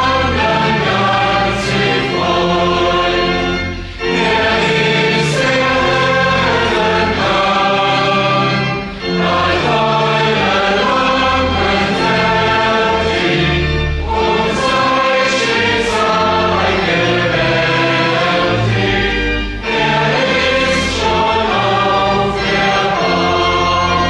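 Church congregation singing a verse of a hymn together in long held notes, with organ accompaniment. There are brief breaks between the lines about every five seconds.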